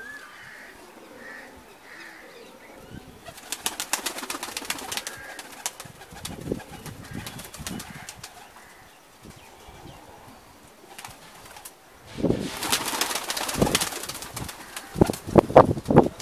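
Domestic pigeons cooing faintly, then bursts of wing clapping and flapping as birds take off from the ground, first a few seconds in and again, louder, about twelve seconds in. A few loud thumps near the end.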